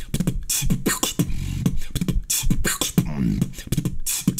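Human beatboxing: a fast mouth-made drum pattern of sharp clicks and hissing snare hits over a low bass rumble, with a brief pitched, wavering vocal sound about three seconds in.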